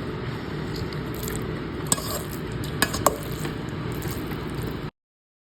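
Food sizzling in a hot pan with a steady hiss, and a spoon scraping and clinking against the pan three times. The sound cuts off suddenly near the end.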